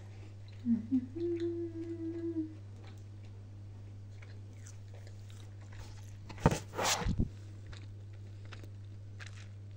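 A person hums a short note, then about two-thirds of the way through bites into a toast with ham, cheese and salad with a sharp crunch, followed by chewing. A steady low hum runs underneath.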